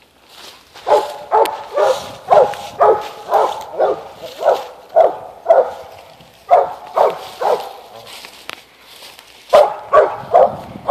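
Eight-month-old mountain cur pup barking steadily, about two barks a second, with a break of about two seconds past the middle. This is treed barking: the pup is at the foot of a tree with game up on a limb.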